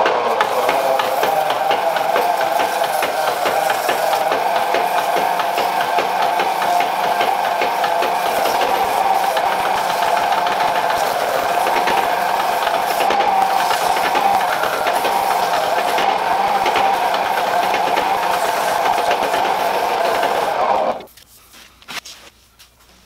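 Foot-powered treadle lathe running, a steady fast mechanical clatter and whir, while oak shavings are pressed against the spinning wooden mallet to burnish it. It stops about 21 seconds in.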